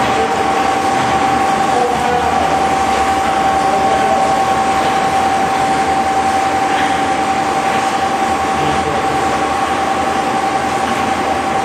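Sinc Makina USM 30 universal shredder, driven by two 30 kW electric motors, running steadily as it shreds steel bearing turnings through its screen. A steady high whine holds over a constant grinding roar.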